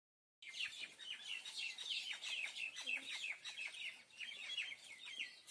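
Morning chorus of many small birds chirping from the trees: a dense stream of short, quick falling notes, many overlapping, starting about half a second in.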